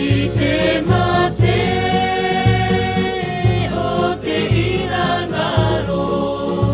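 Background music: singing voices hold long notes over a steady bass beat.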